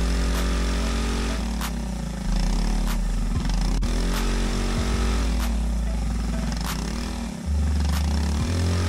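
Briggs & Stratton LO206 single-cylinder four-stroke kart engine running on a dyno during break-in, its speed swaying gently up and down. It gets louder about two seconds in and again near the end. A faint tick repeats roughly every second and a quarter.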